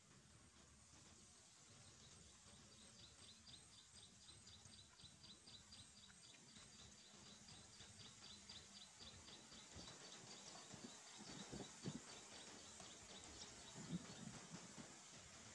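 Near silence: faint outdoor ambience with a rapid, even series of high chirps, about five a second, and two soft low knocks near the end.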